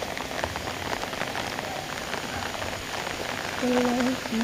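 Rain pouring down in a steady hiss. Near the end a voice begins to sing a held note.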